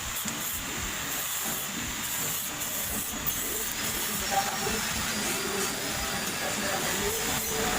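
A steady hiss, with faint voices in the background.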